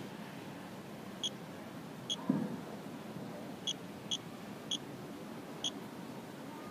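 Short high beeps from Geiger-counter radiation detectors (a GQ GMC-320 and a Radex), six of them at irregular intervals, each one a detected count at a low background dose rate of about 0.1 µSv/h. A brief low noise about two seconds in, over steady background noise.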